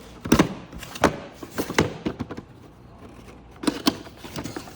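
Packaging being handled while items are taken out of a box: several sharp knocks and clicks with rustling, and a quieter stretch in the middle.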